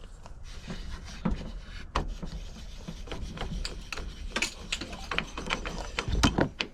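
Wood lathe tailstock parts being fitted back together by hand: irregular clicks, knocks and scraping, with a louder cluster of knocks near the end.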